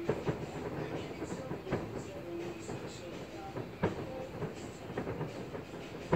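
Fireworks display: a handful of sharp bangs from bursting aerial shells over a continuous rumble and crackle.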